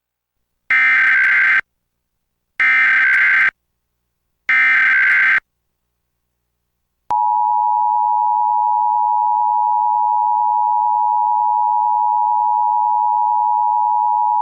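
Emergency Alert System SAME header: three identical bursts of a raspy digital data warble, each about a second long, sent about a second apart. About seven seconds in, the steady EAS two-tone attention signal starts and holds. Together they open an EAS alert, here the National Periodic Test.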